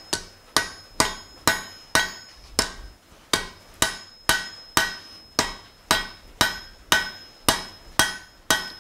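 Blacksmith's hand hammer striking a glowing-hot steel bar on an anvil, a steady series of blows about two a second, each with a short metallic ring from the anvil. The smith is drawing out a point on the hot steel.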